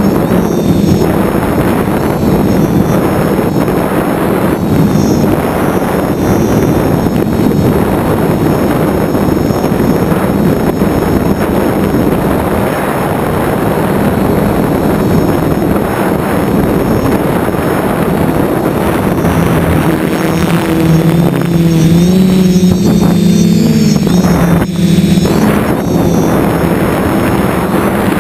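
DJI 450 quadcopter's electric motors and propellers whirring in flight over a steady rushing noise. The motor pitch wavers and rises for a few seconds about three-quarters of the way through, as the throttle changes.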